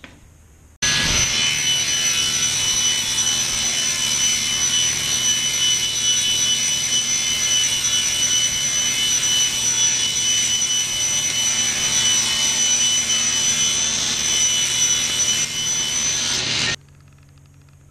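Table saw running and cutting, a steady whine with a high tone, as a strip of small wooden segment pieces glued to a waste block is run along the fence to trim a clean edge. The sound starts suddenly about a second in and cuts off suddenly near the end.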